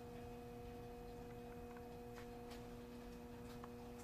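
Faint steady hum of a few held tones, with a few light ticks as the lathe's tailstock handwheel is turned.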